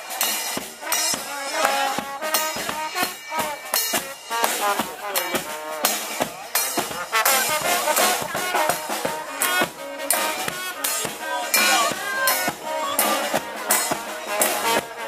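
Live brass band playing: trumpets, trombone and sousaphone over snare drum, bass drum and cymbal, with a steady drumbeat.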